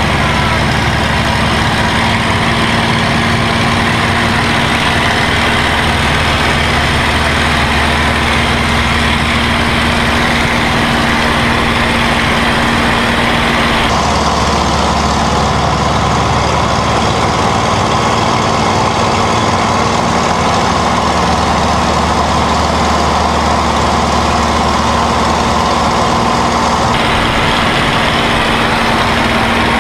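Packard Merlin V-12 engine of a P-51D Mustang running steadily with a loud, even drone. Its tone changes abruptly about halfway through and again near the end.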